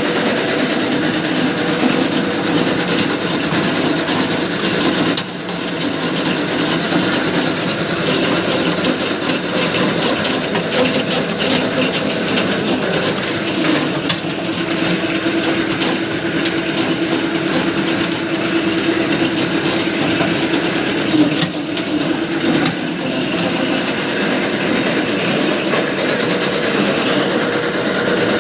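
Areca nut splitting machine running, with a dense, rapid clatter over a steady motor hum as dried whole areca nuts go through it.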